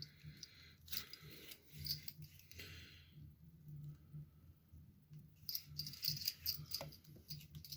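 Packaging rustling and small metal clinks and rattles as a leather equipment belt with a buckle is unwrapped and handled, in scattered bursts of handling noise.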